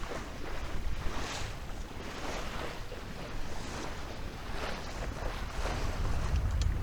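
Water washing and splashing along the hull of a Maxi 95 sailboat under sail, in soft swells about once a second, with wind buffeting the microphone and growing stronger near the end.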